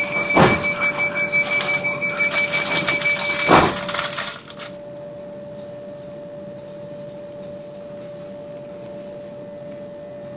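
Interior running noise of a Class 387 electric multiple-unit train, with a steady whine and two sharp knocks in the first few seconds. About four seconds in it drops suddenly to a quieter, steady hum.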